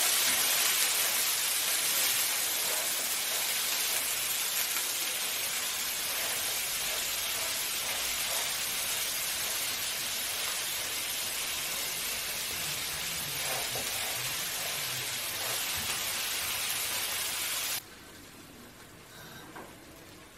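Lamb kofta patties sizzling in hot oil in a frying pan, a steady loud hiss. Near the end it drops suddenly to a much fainter level.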